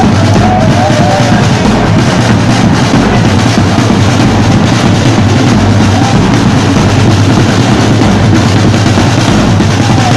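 Loud carnival drumming: a marching drum slung on a strap, beaten with wooden sticks, as part of a drum band playing a steady rhythm.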